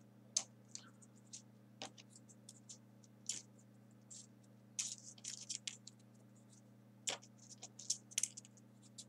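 Folded paper 3D origami units rustling and ticking as fingers pick them up and push them into a paper model: scattered light clicks and scratches, busiest about five and eight seconds in, over a faint steady low hum.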